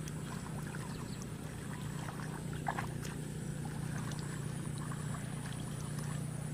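Small splashes and squelches of hands groping through shallow, muddy water, a few soft ticks scattered throughout, over a steady low hum and a thin steady high tone.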